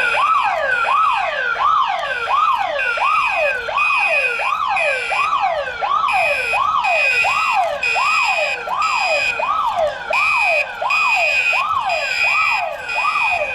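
Building fire alarm blaring: an electronic wail sweeping up and down in pitch about twice a second, with a higher steady tone pulsing on and off over it from about three seconds in.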